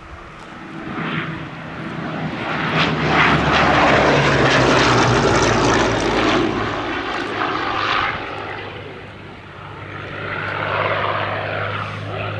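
Hawker Sea Hurricane's Rolls-Royce Merlin V12 engine and propeller during a flypast. The sound builds to a peak a few seconds in and then fades with a drop in pitch. It grows louder again near the end as the fighter comes round.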